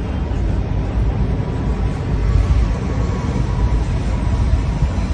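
Wind buffeting the microphone in uneven gusts, over a steady outdoor background rumble of city and harbour traffic.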